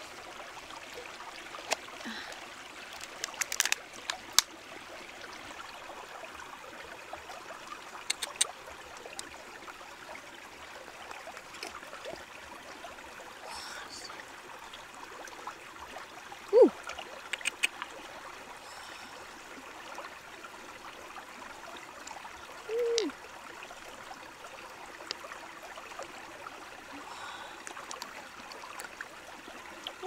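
Shallow stream water running steadily, with scattered sharp clicks of a knife and shell being handled. About halfway through, and again later, come two brief pitched sounds.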